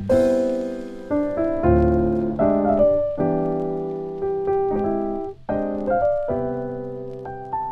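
Background music: a piano playing slow chords and single notes, each struck and left to fade before the next.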